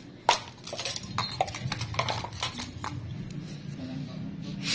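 Steel nail clipper and pedicure tools clicking and clinking as they are handled: one sharp click about a quarter second in, then a scatter of lighter clicks and taps over the next few seconds.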